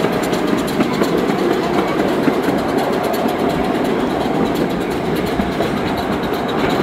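Miniature train, pulled by a coal-fired steam locomotive, heard from aboard a passenger car while moving: a steady rumble and rattle of the wheels and cars on the rails, with light clicks.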